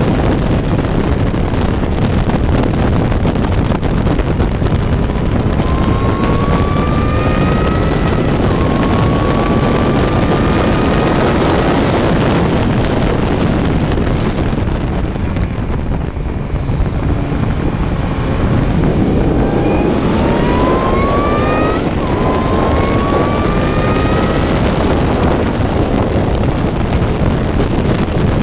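Onboard engine of a race vehicle accelerating hard, its pitch climbing through the revs and dropping sharply at each upshift, under heavy wind rush. About halfway through the engine note eases off briefly, as if lifting for a corner, then climbs again through the gears.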